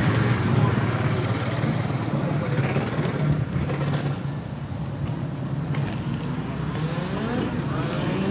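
Motorbike engines running, with a steady low engine note throughout. Near the end an engine revs up in rising sweeps.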